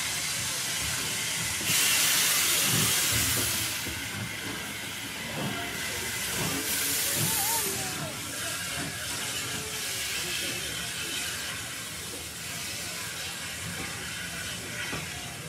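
BR Standard Class 4 steam locomotive letting off steam over a steady background hiss. A loud burst of hissing steam about two seconds long comes about two seconds in, and a shorter one about seven seconds in.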